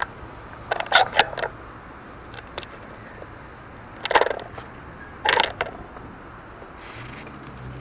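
Steady low hum of city street traffic. Three short clusters of sharp clicks and clatter stand out above it, about a second in, at about four seconds and at about five and a half seconds, with a few faint single clicks between.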